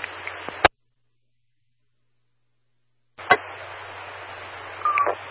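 Two-way radio channel between transmissions: open-channel static that ends with a squelch click, then about two and a half seconds of dead silence. The next transmission keys up with a click, and steady static with a low hum runs until the speech, with a brief short tone near the end.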